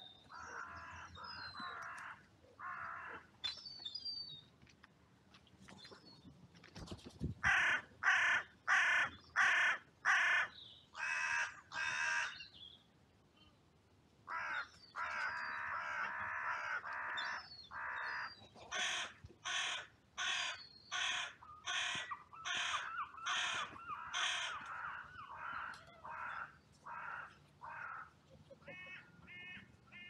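Carrion crows cawing: repeated runs of short, harsh caws, roughly one every half-second to second, with a stretch of longer, rougher calls in the middle. A smaller bird chirps faintly near the start.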